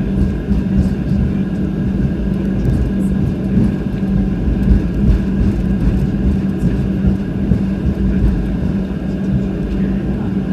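Steady roar of a Boeing 737-700's CFM56 engines and rushing air heard inside the cabin, with a constant low hum.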